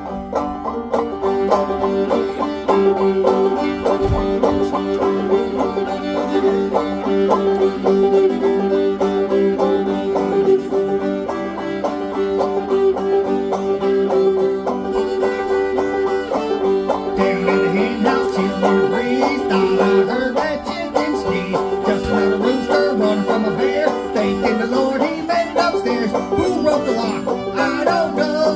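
Bluegrass string band playing an instrumental passage, with picked banjo at the front.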